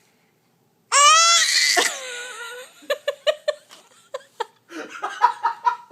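A baby's loud sneeze: a drawn-out, high-pitched voiced 'aah' that ends in a sharp burst, followed by laughter in short, quick pulses.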